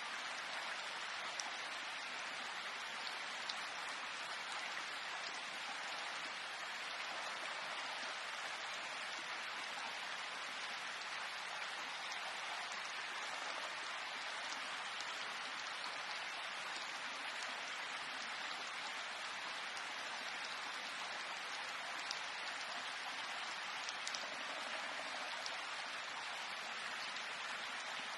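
Steady rain falling, an even hiss with a few separate drops ticking louder now and then.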